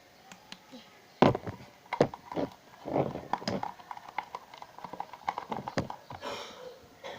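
Homemade glue-and-detergent slime being squeezed and kneaded by hand, giving irregular wet squelches and sharp popping clicks, the loudest about a second in.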